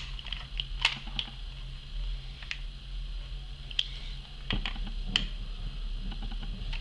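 Scattered small clicks and taps, about half a dozen, from a Phillips screwdriver working the screws beside the hammer of a WE 1911 CO2 airsoft pistol, over a low steady hum.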